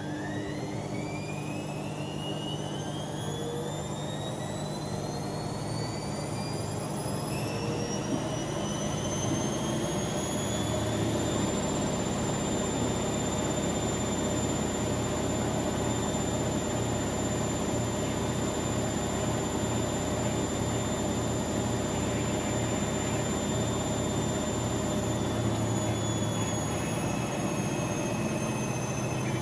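Bauknecht WA Aquaton 1400 washing machine spinning up: the drum motor's whine rises in pitch over about ten seconds, then holds steady at spin speed over a low hum, easing off slightly near the end.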